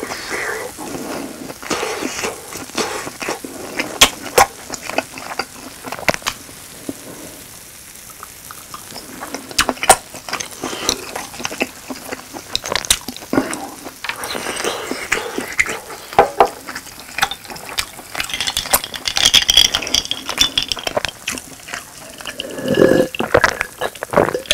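Close-miked eating sounds of grilled cheese: chewing, with many sharp clicks of chopsticks, the hot-sauce bottle and the grill pan over a light hiss. Near the end there are gulps of a drink.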